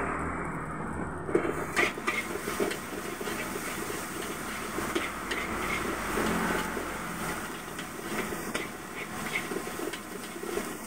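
A metal spatula scraping and clanking against a steel wok as fried rice is stir-fried over a gas burner, with a hissing sizzle beneath. The clanks start about a second and a half in, after a steady dull noise.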